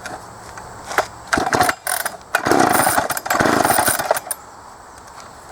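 Two pulls on the recoil starter cord of a 1970s Homelite 350 chainsaw, each a short rasping whirr of the engine being cranked without firing, after a few clicks and knocks of handling the saw. The on-off switch is still set to off, so the engine does not catch.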